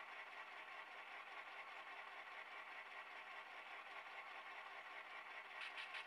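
Econami diesel sound decoder in an HO-scale model switcher playing a diesel engine idling steadily, heard faintly through its small cell-phone speaker. A few quick clicks come near the end.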